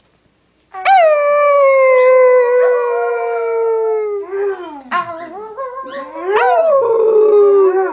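Dog howling: one long howl about a second in, slowly falling in pitch, then shorter wavering howls, and another long falling howl near the end.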